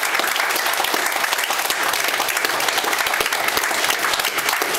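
Audience applauding: many hands clapping together in a steady, dense stream.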